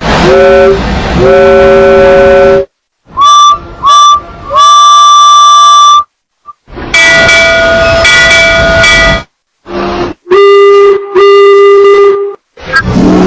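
Thomas the Tank Engine–style steam-whistle sound effects blown again and again: about ten blasts, some short toots and some held for two seconds or more, with brief gaps between them. The pitch changes from one whistle to the next, and each one slides up as it starts.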